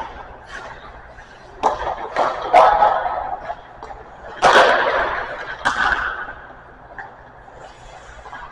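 Sharp cracks and smacks of hockey sticks and pucks on the ice, about five in quick succession, each trailing off in the echo of the rink.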